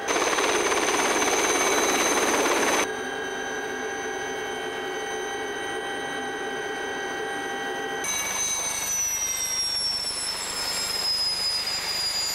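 Aérospatiale Lama helicopter's turbine whine with rotor noise. It is loud and rushing for the first three seconds, then a steadier whine. About eight seconds in, the whine starts to fall slowly in pitch.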